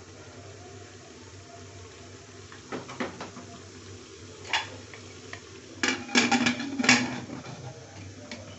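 Aluminium pressure cooker lid being handled, set on the pot and locked into place. A few separate metal clicks come first, then a quick run of loud clanks and scrapes about six to seven seconds in.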